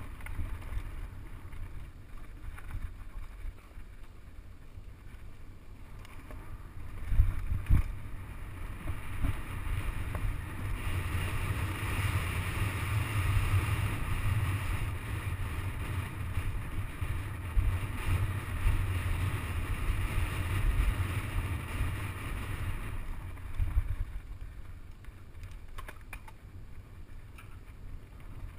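Wind buffeting the microphone over the rumble of a mountain bike's tyres and frame rattling down a dirt trail, with a few sharp knocks about seven seconds in. The rush grows louder and brighter for about ten seconds in the middle as the bike speeds up.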